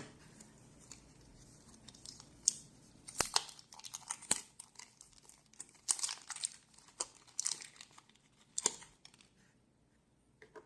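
Scattered small clicks, scrapes and crinkling rustles of small parts and tools being handled while a part is swapped in a Dunhill Rollagas lighter. The sounds are irregular, with a quiet stretch near the end.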